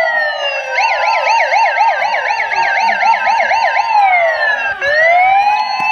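Electronic siren sounding in a slow wail of long falling and rising sweeps, switching about a second in to a fast yelp of about four warbles a second for some three seconds, then back to the slow wail.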